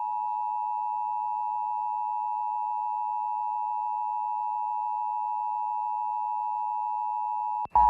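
Emergency Alert System attention signal: two steady tones sounded together in a loud, unbroken dual-tone drone, announcing a required monthly test alert. It cuts off abruptly just before the end, where a louder sound begins.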